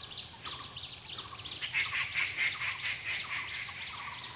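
Several wild birds chirping and calling at once: a busy chorus of quick, high chirps, with short runs of lower repeated notes now and then.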